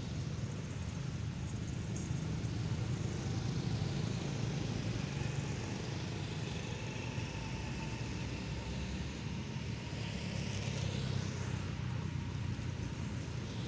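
Steady low rumble of background noise, even in level, with a faint high sweep about ten seconds in.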